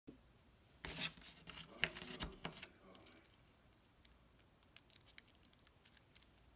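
An X-Acto knife is handled on corrugated cardboard: a cluster of rustles and clicks comes about a second in. Scattered faint ticks follow later as hands twist the knurled collet on the metal handle.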